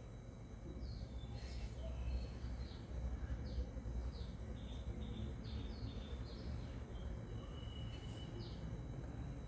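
Small birds chirping: short, high, falling chirps, one or two a second, with one longer steady note near the end, over a low steady background rumble.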